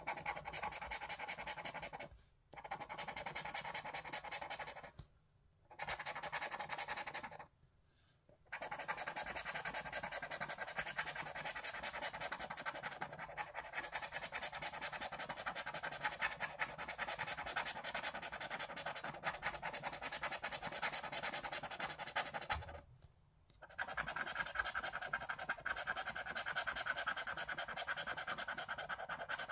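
A plastic scratcher scraping the coating off a National Lottery scratchcard in quick back-and-forth strokes. It stops briefly four times as it moves between panels.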